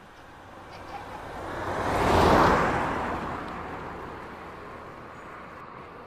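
A vehicle passing by: a rushing noise that swells to a peak a little past two seconds in, then fades away slowly.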